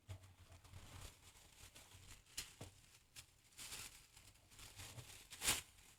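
Faint handling noise as a microphone boom arm and its desk mount are unpacked: light rustling and small clicks, with one sharper knock about five and a half seconds in.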